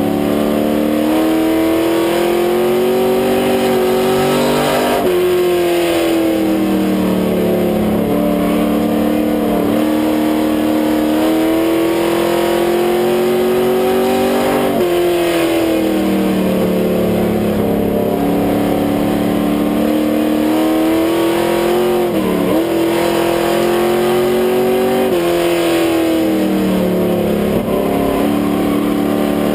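Grand Stock race car's engine heard from inside the cockpit at racing speed. It revs up in long climbs and drops sharply in pitch when the driver lifts for the turns, about five times, then winds back up.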